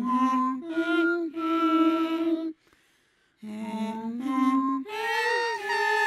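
A voice humming or singing a short wordless tune: three rising notes, a pause of about a second, then three more, the last one held with a wavering pitch.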